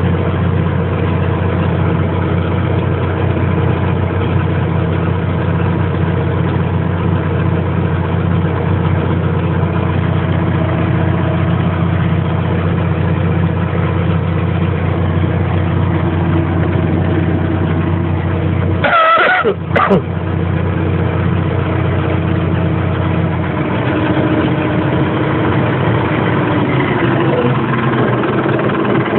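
Massey Ferguson 294-S tractor's diesel engine running steadily, heard from inside the cab. About two-thirds through, a short high squeal and a brief dropout break in, and a few seconds later the engine note changes.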